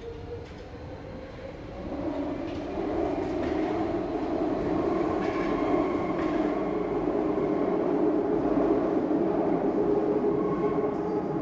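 Vintage Paris metro train heard from inside the car, getting louder over the first three seconds as it gathers speed, then rolling steadily along the rails with faint whining tones above the running noise.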